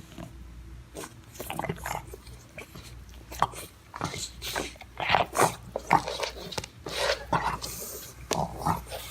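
A dog making many short, irregular sounds in quick succession, which cut off suddenly near the end.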